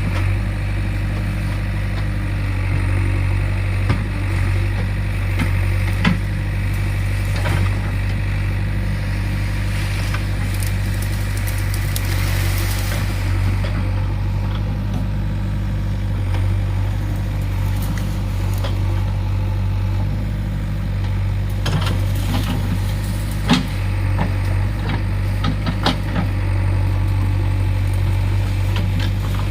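Diesel engine of a JCB 3DX backhoe loader running steadily at an even speed, with occasional sharp knocks and clanks, several of them close together near the end.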